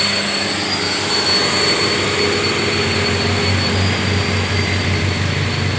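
Road traffic: motorcycle and vehicle engines running steadily nearby, with a low hum and a thin, steady high-pitched whine above it.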